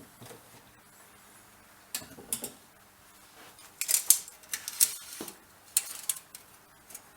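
Light-gauge metal angle stock being handled and set down while measuring: a series of short metallic clinks and clatters, in clusters about two seconds in, around the middle, and near six seconds.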